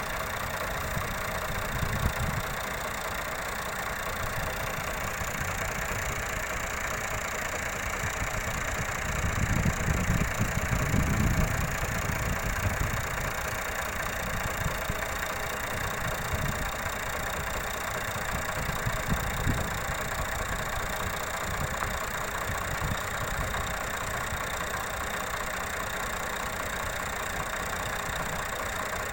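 Fiat tractor engine running steadily while driving a wheat threshing machine, a continuous mechanical din with a low rumble. The rumble swells louder for a few seconds about ten seconds in.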